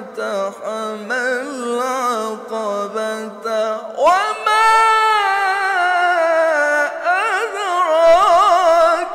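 Male Quran reciter chanting in the melodic tilawah (mujawwad) style: one voice drawing out long, ornamented notes with a wavering melisma. A new phrase starts about four seconds in with a rise in pitch, then slowly falls and wavers.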